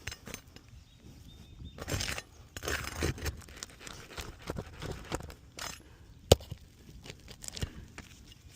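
Hand tools scraping and clinking on asphalt roof shingles while they are worked loose for a repair, with one sharp knock about six seconds in.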